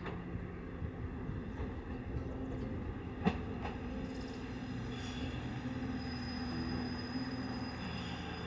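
Steady low rumble and hum of a moving vehicle, with a sharp click at the start and another about three seconds in.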